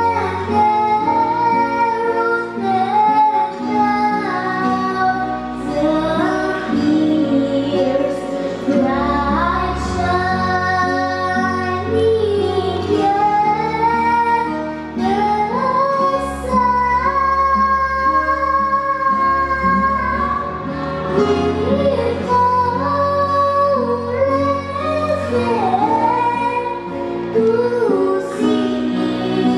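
A female voice singing a melody with long held notes and slides between them, over instrumental accompaniment.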